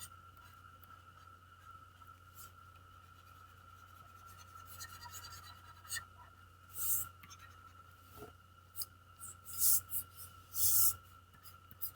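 Short, irregular scratching strokes of a pen drawing on a surface, a few louder strokes near the end, over a steady faint electrical hum.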